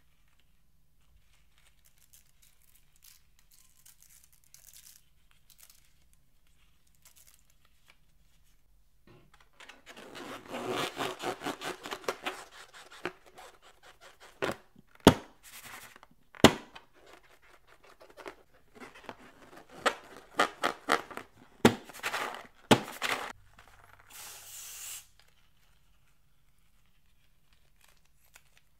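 Faint crackling of foam beads being stirred in a glass dish, then a rubber balloon squeezed and kneaded in the hands: two stretches of rapid rubbery crackling and crinkling, with several sharp snaps between and within them. A short hiss near the end.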